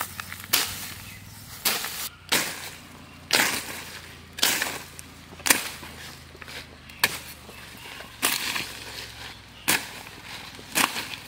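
Curved sickle slashing through weeds and brush, about ten sharp cutting strokes, roughly one a second.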